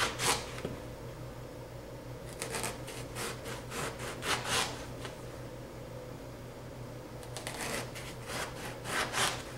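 Kitchen knife slicing a small eggplant into thick rounds on a plastic cutting board: two runs of short, crisp cutting strokes, one about two and a half seconds in and another near the end, over a faint steady hum.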